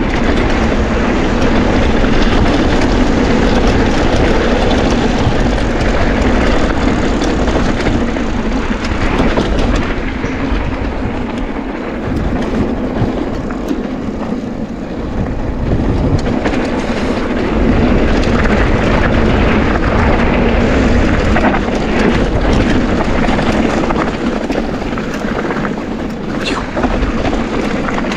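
Mountain bike riding down a bike-park trail: tyres rolling over dirt and stones with a constant clattering of chain and frame. The noise eases for a few seconds about halfway through, then picks up again.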